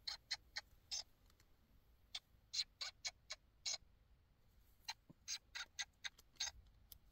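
Battery-powered animated plush baby koala toy's moving mechanism clicking as its head works: three runs of quick clicks, about four a second, with short pauses between.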